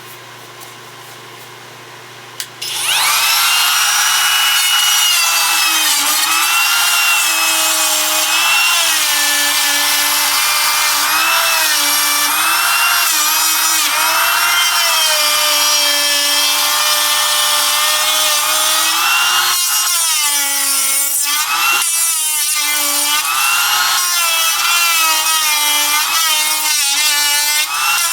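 A workshop air filter hums steadily; about three seconds in, a power cutting tool starts up and cuts into laminated MDF in repeated passes, its pitch dipping under load and recovering, with a few brief breaks about twenty seconds in.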